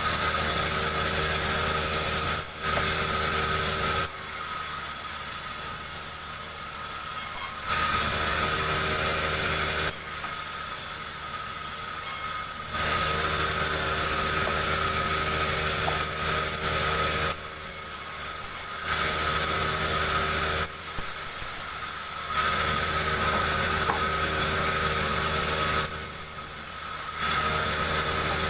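Chainsaw engine running while ripping a jengkol log lengthwise, switching every few seconds between a louder high-speed note and a quieter lower one as the throttle is opened and eased off.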